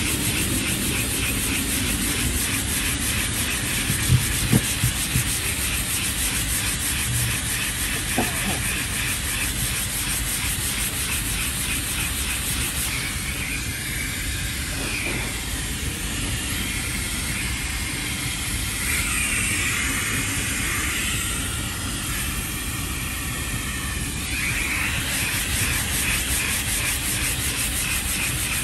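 Hand sanding of cured body filler with a dust-extracting sanding block: quick, even back-and-forth rasping strokes over the steady hiss of the extraction vacuum. The strokes stop for several seconds around the middle while the hiss carries on, and a few light knocks come about four seconds in.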